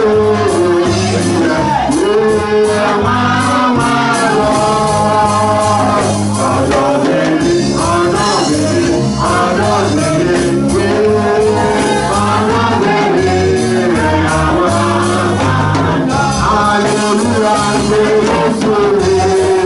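A woman singing a worship song through a microphone and PA, backed by a live band of keyboard, drums and backing singers playing a steady beat.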